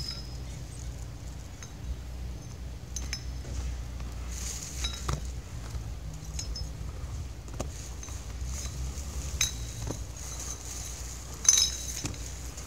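Scattered light metallic clinks and clanks at irregular intervals, a few with a brief ringing tone, the loudest about eleven and a half seconds in, over a steady low rumble.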